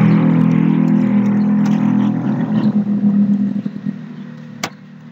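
A steady engine hum that fades away over a couple of seconds, dying down about three and a half seconds in, followed by one sharp click.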